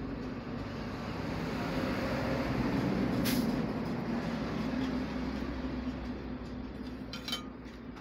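Low, steady rumble of a vehicle engine that swells a little around three seconds in and eases off toward the end. There is a brief hiss in the middle and a few light clicks near the end.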